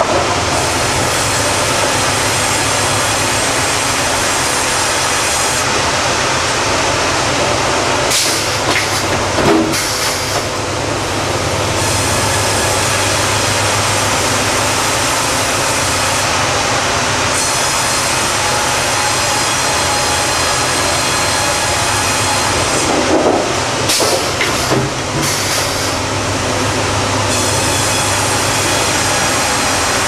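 Sawmill headrig running: a band saw cutting a squared cant on a Hurdle log carriage, a steady loud mechanical din. There are short louder knocks and squeals about eight to ten seconds in and again around twenty-three to twenty-five seconds.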